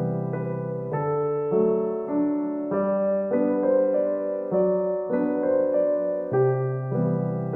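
Background music: soft piano, a repeating pattern of notes and chords changing about every half second.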